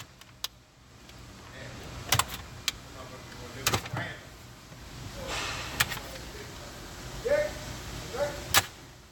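Plastic trim tabs being pried loose from their slots with a knife: a string of sharp plastic clicks and snaps, with two short squeaks of plastic just before the loudest snap near the end.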